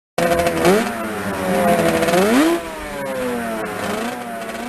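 Yamaha Aerox 155 scooter's single-cylinder engine being revved: the engine pitch climbs sharply three times with throttle blips and falls back between them.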